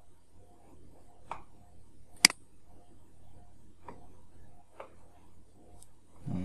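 A few sparse, sharp clicks of a computer mouse and keyboard, one much louder click a little over two seconds in, over a faint steady background, with a brief low murmur right at the end.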